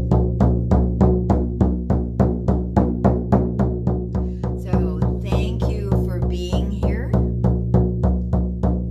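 Large shamanic frame drum beaten with a padded beater in a steady pulse of about four strokes a second, each stroke leaving a deep, booming ring.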